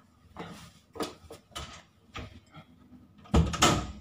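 Footsteps entering a small room, about one every half second, followed near the end by a loud double bump, the loudest sound here, likely the door or a chair.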